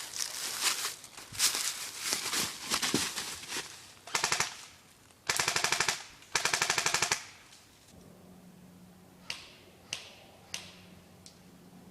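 Airsoft guns firing: scattered shots, then three rapid full-auto bursts, the middle one the longest. After that come four single shots spaced out.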